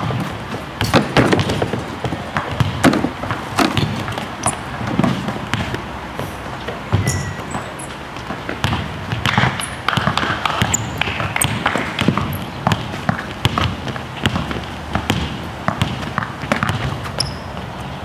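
Basketballs bouncing on the court as players dribble through a drill, a run of irregular sharp thuds.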